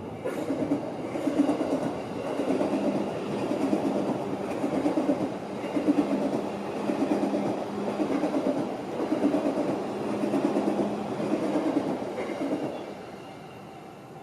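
Train passing, its wheels clacking over the rail joints in a steady rhythm of about one clack a second, dying away near the end.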